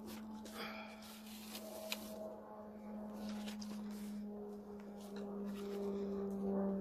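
Airplane passing overhead: a steady low drone with a few higher tones above it, growing louder toward the end. Light clicks and rustles of paper and twine being handled.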